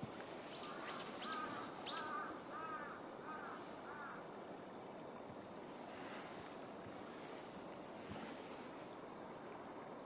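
Common kingfisher calling: a run of short, high, piercing notes, about two a second, starting about two seconds in and going on until near the end. A second bird's lower chirps sound in the first few seconds.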